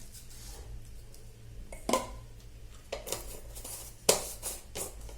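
Several separate sharp clicks and taps of kitchenware as black pepper powder is added to a salad in a mixing bowl. The loudest tap comes about four seconds in.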